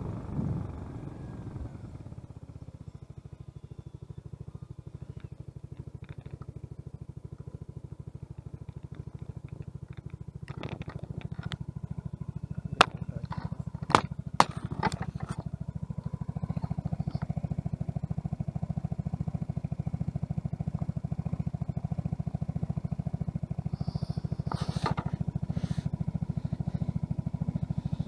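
A scooter's small engine idles steadily after the ride noise dies away as it comes to a stop. Midway there are a few sharp clicks and knocks of the camera being handled against the scooter's body. After that the idle sounds somewhat louder.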